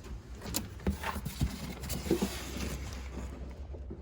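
A few light knocks and clicks of parts being handled, over a steady low hum.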